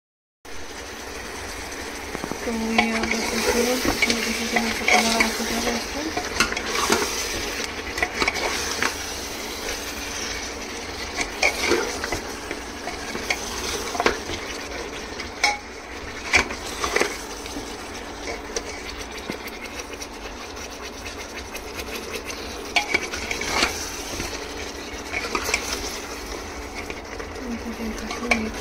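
Mutton sizzling as it fries in oil in a pot while a spoon stirs it, scraping and knocking against the pot at irregular moments throughout.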